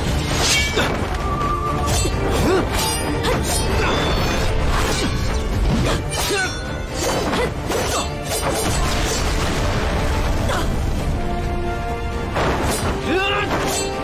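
Dramatic film score over a sword fight, with many sharp clashes and hits scattered throughout.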